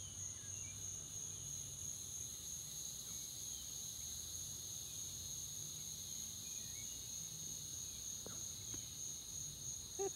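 Steady, high-pitched drone of an insect chorus, such as crickets, holding one unbroken tone.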